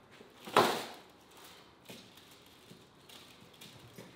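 A large raw bone-in beef steak laid down onto a foil-lined baking tray: one wet slap with a crinkle of foil about half a second in, then a few faint rustles and taps as it is pressed flat on the foil.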